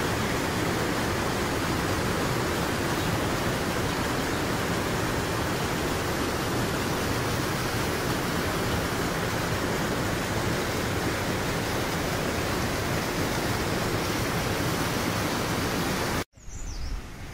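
Steady rushing of a shallow mountain stream tumbling over rocks, cut off abruptly about a second before the end.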